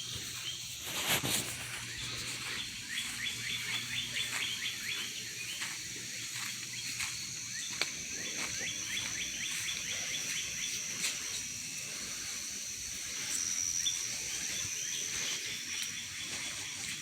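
Outdoor morning ambience: a songbird repeating quick, short, downward-sliding chirps over and over, over a steady high-pitched insect drone. A brief noise stands out about a second in.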